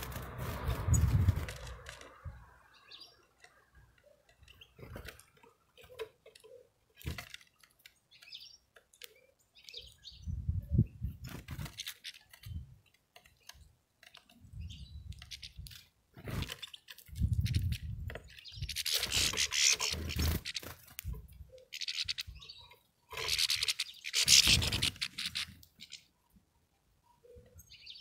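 European goldfinches landing and feeding at a pile of sunflower seeds: wing flutters, rustling and soft thumps with a few short chirps, coming in scattered bursts with quiet gaps and loudest in the last third.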